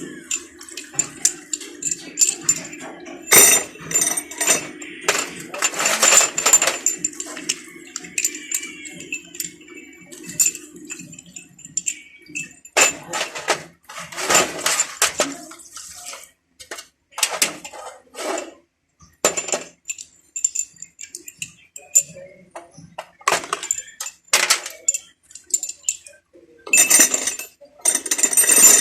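Metal tools and parts clinking and knocking in an irregular string of sharp strikes, with a steady low hum under them that stops about eleven seconds in.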